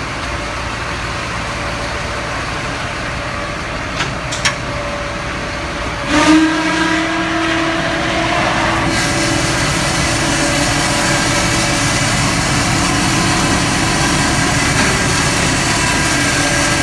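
Fuel truck's engine running steadily, with two light clicks about four seconds in. About six seconds in a louder steady hum with a higher whine comes on, and a hiss joins about three seconds later.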